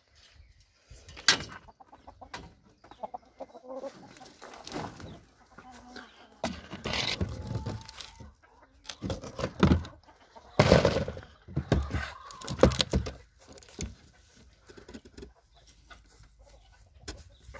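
Chickens clucking on and off, with a few sharp knocks in between.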